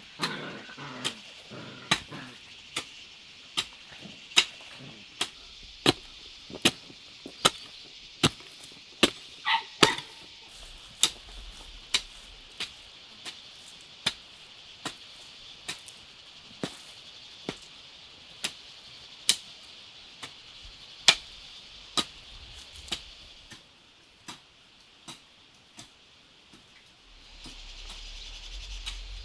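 Repeated sharp strikes of a hand tool in a steady rhythm, about one every three-quarters of a second, over a constant high hiss. The strokes grow fainter and stop about four-fifths of the way through.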